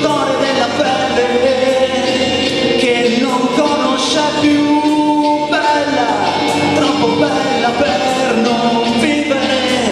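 A man singing an Italian song live into a handheld microphone over an instrumental backing track, holding one long note about midway through.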